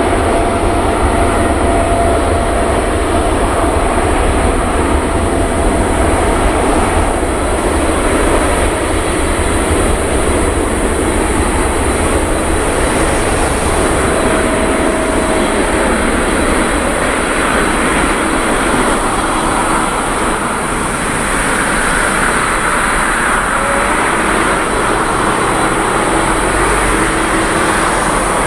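Boeing 787-9's twin GEnx-1B jet engines at take-off thrust, a loud steady roar with a thin whine in the first few seconds, heard from behind as the airliner rolls away down the runway; the hiss grows stronger about two-thirds of the way through.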